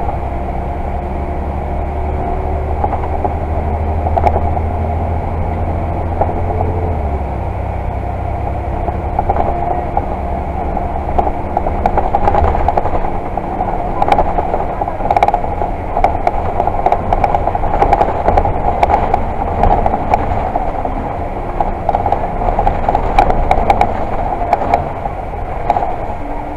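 Volvo Super Olympian double-decker bus's diesel engine, heard from inside the upper deck. The engine note rises as the bus accelerates, drops sharply about seven seconds in at a gear change, then runs on steadily. From the middle on, the cabin's fittings and panels rattle and clatter.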